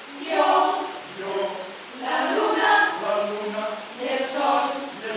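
A choir singing in a series of short phrases, voices only.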